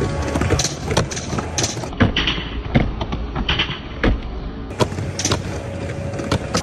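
Skateboards rolling on a wooden mini ramp: a steady wheel rumble broken by many sharp clacks and slaps of boards hitting the ramp and coping.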